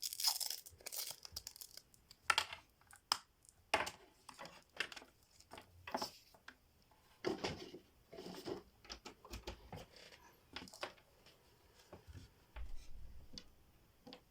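Packaging being handled during an unboxing: irregular rustling, crinkling and tearing with scattered sharp clicks and knocks.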